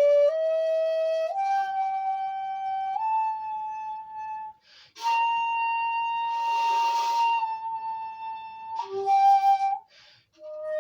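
Bamboo flute played note by note up a scale, each note a step higher, then one long held note with a breathy edge before dropping to a lower note. Short breaths between phrases leave brief gaps.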